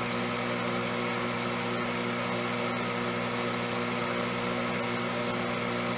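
Electric stand mixer running steadily, its beaters whipping chilled heavy cream in a glass bowl into chantilly cream.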